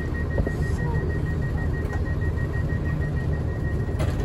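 Low steady rumble of a diesel train idling at a station platform, with a rapid, high-pitched beep repeating over it, the door warning alarm. A short hiss about four seconds in as the doors begin to close.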